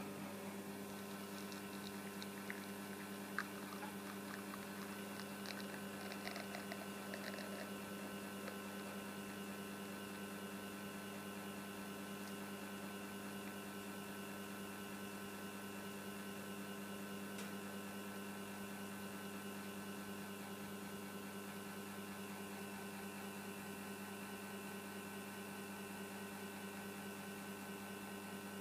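Rocket Giotto Evoluzione V2 espresso machine's rotary pump humming steadily while it pushes water through the coffee puck during a double-shot extraction, with a few faint ticks in the first several seconds.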